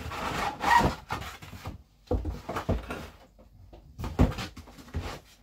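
Packaging rustling for about two seconds as parts are handled in an opened box, then a handful of separate knocks and thuds as pieces are moved about.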